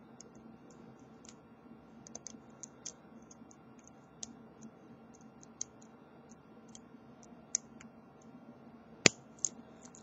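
Lock pick and tension wrench working a Brinks deadbolt's brass pin-tumbler cylinder: faint, irregular small clicks, with a sharper click about nine seconds in.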